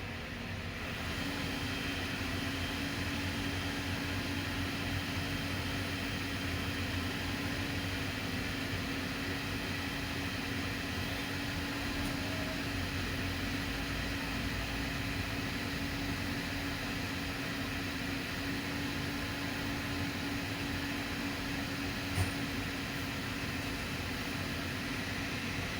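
Hyundai hydraulic excavator's diesel engine running steadily at working speed, with a steady hum that sets in about a second in. A single sharp knock comes near the end.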